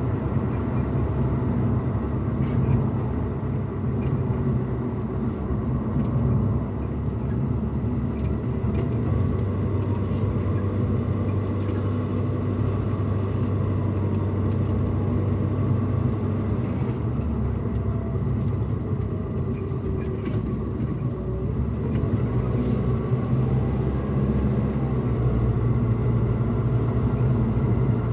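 Road and engine noise inside a moving pickup truck's cabin: a steady low rumble of tyres and engine that rises and falls a little with speed.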